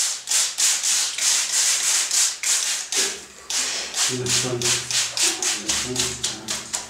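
Quick, rhythmic rubbing strokes on a sheet of paper pressed against carved stone, about three to four a second, as the paper is worked into the engraving to take a rubbing.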